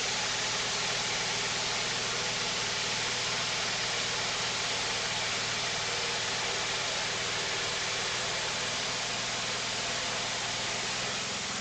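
Wood-Mizer portable sawmill running steadily: its engine's low hum under a constant even hiss.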